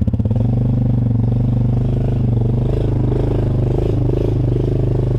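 ATV engine on throttle: it picks up speed right at the start and holds a steady, higher running note while the quad wades through a deep mud hole.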